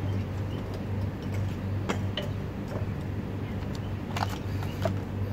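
A few light, sharp metal clicks and taps of car parts and tools being handled during an engine-mount replacement, over a steady low hum.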